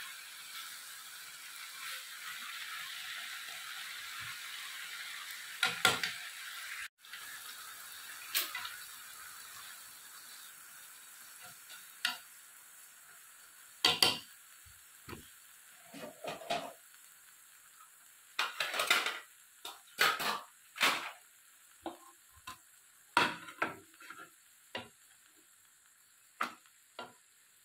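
Leafy greens sizzling in a frying pan as they are stir-fried with chopsticks, the sizzle slowly dying down. In the second half, chopsticks clack and scrape against the pan again and again as the greens are lifted out.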